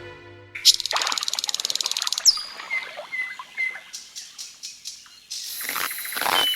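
Birds chirping on a cartoon soundtrack: a rapid buzzing trill, then three short high chirps, then a hissing background.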